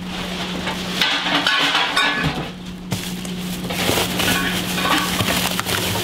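Black plastic garbage bag rustling and crinkling as it is handled and pulled from a refrigerator, in two long stretches. A steady low hum runs underneath.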